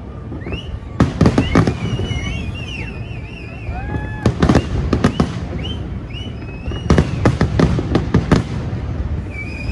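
Fireworks display: aerial shells bursting in rapid clusters of bangs, with high whistles gliding in pitch between the bursts.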